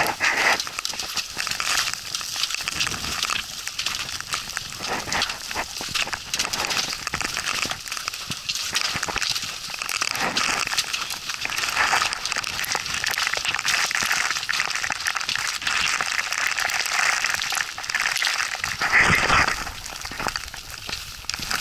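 Hikers' footsteps crunching on a snowy, rocky trail, with irregular clicks and scrapes of trekking poles and rustling of clothing and packs, over wind noise on the microphone. A louder rush of noise comes near the end.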